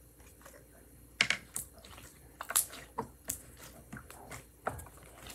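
Pink clear slime being squeezed and worked in the hands, giving a string of irregular sharp clicks and pops that start about a second in.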